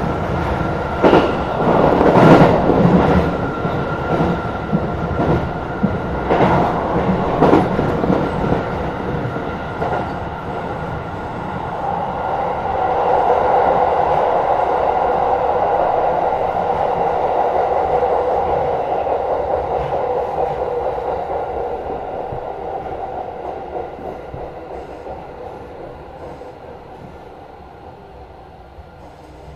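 Tokyo Metro 16000 series train running on the rails, with a series of sharp clacks over rail joints in the first several seconds, then a swell of steady running noise that dies away as the train slows toward a stop.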